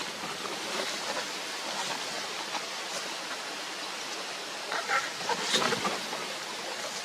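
Steady rushing of wind outdoors, with a few short bird calls a little after the middle.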